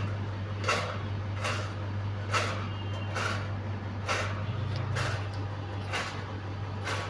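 Electric fan running with a steady low hum, with a strange rasping swish that repeats regularly, a little more than once a second.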